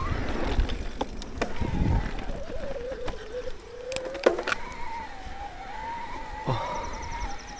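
Shimano mid-drive e-bike motor whining under pedal assist on a climb, its pitch sinking and then rising again as the cadence changes. The bike's drivetrain and frame give several sharp knocks over rough ground, over a low rumble.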